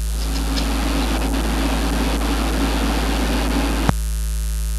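Constant low mains hum on the recording, with a steady rushing noise over it. The noise stops with a sharp click about four seconds in, at a splice in the tape, and the hum carries on alone.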